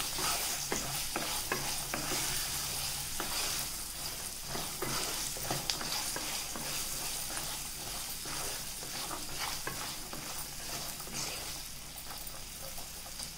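Wooden spatula stirring boiled chickpeas through a sizzling spice masala in a nonstick kadai: repeated irregular scraping strokes over a steady frying hiss.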